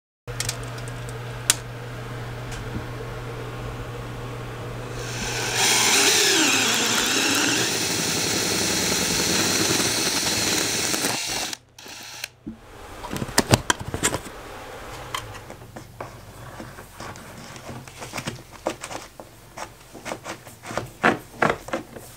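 A drill with a spade bit boring through the finished wall, its motor speed rising and falling for several seconds. After a short break comes a series of knocks and rattles, growing quicker near the end, as electrical cable is fed into the hole and down inside the wall. A steady low hum comes before the drilling.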